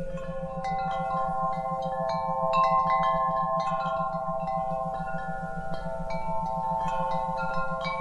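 Wind chimes ringing, many overlapping strikes at different pitches, each note ringing on, over a low steady tone that pulses rapidly: an isochronic tone for relaxation.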